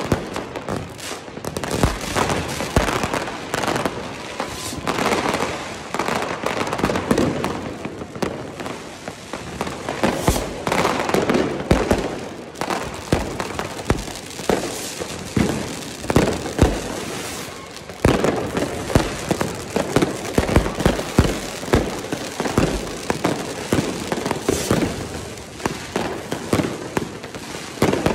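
Street fireworks going off all around: rockets and firecrackers in a dense, continuous run of irregular bangs and crackles.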